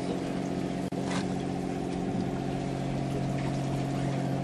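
Boat engine running with a steady hum, with a brief hiss about a second in.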